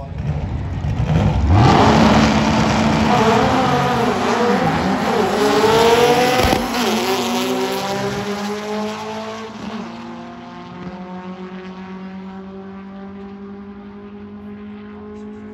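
Drag racing car's engine revving hard and racing off, its pitch rising as it pulls away down the strip and fades with distance.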